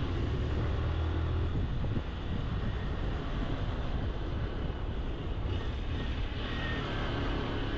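Honda CG Titan 160's single-cylinder engine running on the move, with wind and road noise on the camera microphone. The strong steady engine note falls away about two seconds in and the sound turns rougher and less even.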